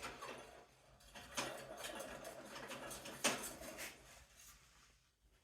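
Faint scraping and rattling of a sheet-metal strip wedged in a steel pipe anvil as it is worked at, with two sharper knocks, then near silence.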